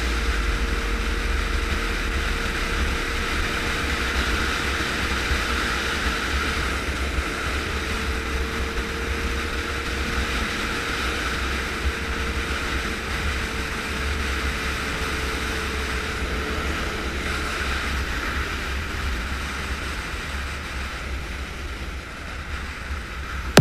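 A motorcycle cruising at steady speed, heard from a camera mounted on the bike: a constant rush of wind on the microphone over a low rumble, with a faint steady hum that fades away near the end.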